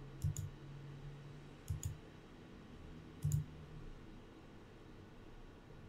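Computer mouse button clicked three times, about a second and a half apart. Each click is a quick press-and-release pair.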